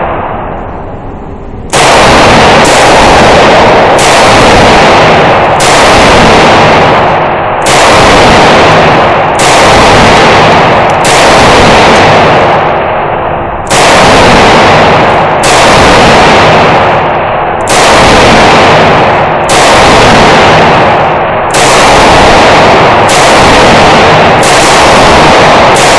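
Semi-automatic vz2008 rifle in 7.62×39 fired shot after shot, roughly one a second, each shot very loud and ringing in the echo of an indoor range. The string starts about two seconds in, after the ring of the previous shot dies away.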